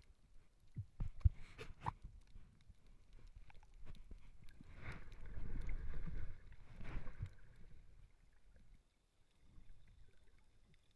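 Muffled underwater sound picked up by an action camera in its waterproof housing while a snorkeller swims: low rumbling water movement with a few sharp knocks about a second in and a louder swishing stretch around the middle.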